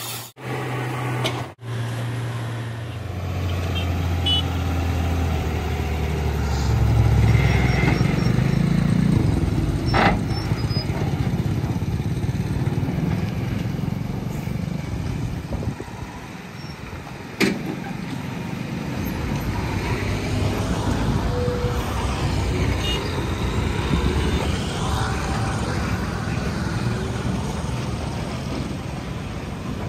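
Heavy diesel truck engine running under load while hauling a tracked excavator on a lowboy trailer, growing louder a few seconds in, with a couple of sharp knocks.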